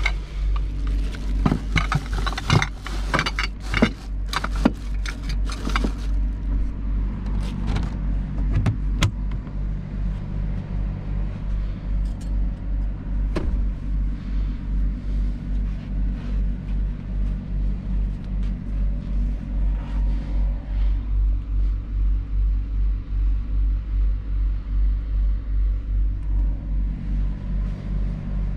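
Truck's diesel engine idling, heard inside the cab: a steady low hum that pulses about one and a half times a second. For the first six seconds a plastic bag is crinkled and handled close by.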